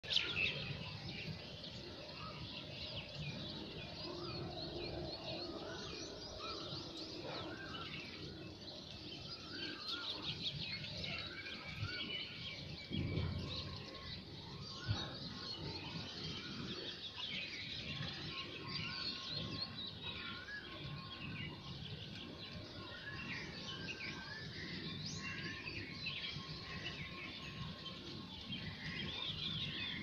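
Many birds chirping, short overlapping calls all through, over a steady low background rumble.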